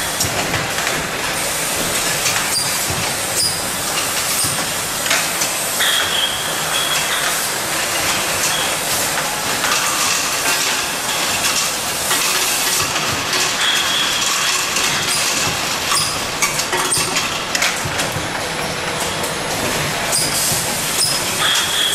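Jar-capping and conveyor line of a chocolate-spread filling machine running: a continuous clatter of glass jars and metal parts with hiss and many small clicks. A brief high squeal recurs every several seconds.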